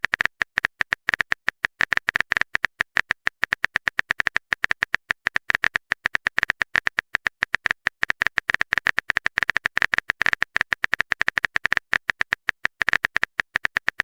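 Typing sound effect: a rapid, uneven run of short, sharp clicks, several a second, as a text message is typed out.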